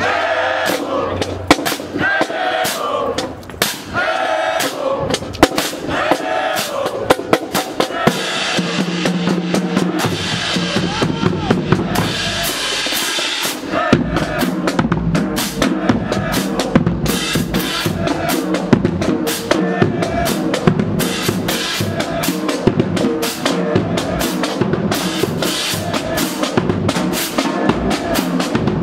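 Marching band drumline playing a marching cadence: snare drums, marching bass drums and crash cymbals striking in a fast, steady rhythm.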